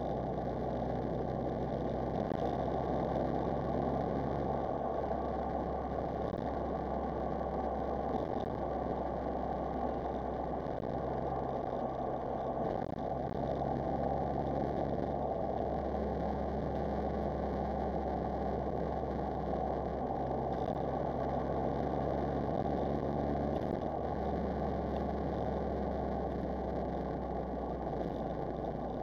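Smart Roadster Brabus's small turbocharged three-cylinder engine running as the car drives along, mixed with steady road noise. The low engine note shifts up and down several times as the revs change.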